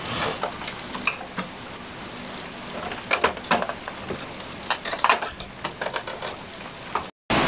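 Irregular plastic clicks, taps and scraping as the plastic side cover of an Epson L3110 printer is worked into place beside its ink tank, over a steady hiss. The sound cuts out briefly near the end.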